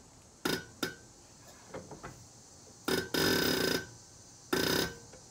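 Diesel injector nozzle firing on a hand-lever pop tester at about 2,000 psi: two sharp clicks about half a second in, then a hissing spray burst lasting under a second about three seconds in and a shorter one near the end as it atomizes fuel into a jar. The bursts show the nozzle opening at its pop pressure and spraying well.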